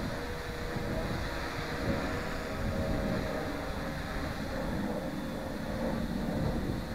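Tarot 680 Pro hexacopter's six electric motors and propellers humming steadily in flight, with wind buffeting the microphone.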